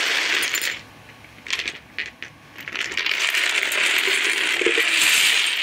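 Small plastic gems clattering as they are poured out of a small pail onto wood. A rattling pour stops about a second in, a few single clicks follow, and a longer pour starts about two and a half seconds in.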